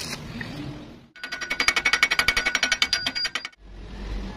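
Stick-welding arc burning an E6013 rod on steel: a fast, loud crackle from about a second in, which cuts off suddenly about two and a half seconds later. Softer, uneven crackling comes before it.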